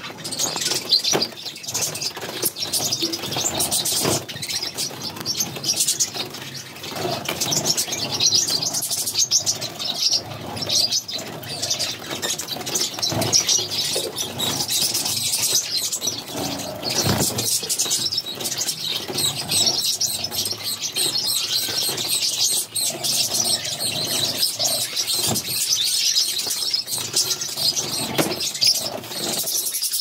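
Budgerigars chirping and chattering nonstop in a busy, high-pitched twitter, with scattered short clicks.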